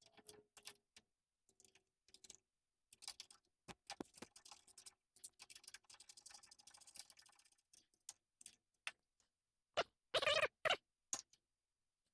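Hand-tool work sped up six times: a socket ratchet clicking and metal parts clinking as the lock bracket's bolts are run in and tightened. Near the end come a few louder, short bursts.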